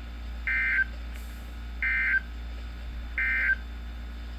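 Emergency Alert System end-of-message signal: three short, identical bursts of SAME digital data tones, evenly spaced a little over a second apart, marking the end of the alert.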